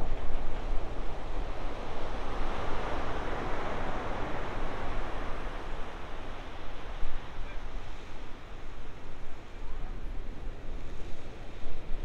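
Ocean surf breaking on a beach break: a steady wash of noise that swells louder and fades in the first half, with wind rumbling on the microphone.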